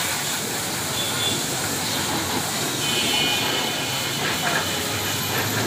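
Steady hiss of water spraying from a hose onto soaped motorcycles, with voices in the background.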